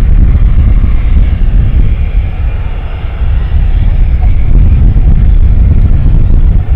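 Boeing 777-300ER's GE90 jet engines at takeoff power: a loud, deep, steady rumble with a rough roar above it.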